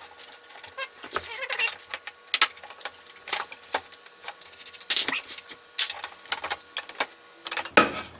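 Homemade wooden pulleys being worked on and off their metal shafts by hand: irregular clicks, knocks and scrapes of wood on metal, with a louder knock near the end.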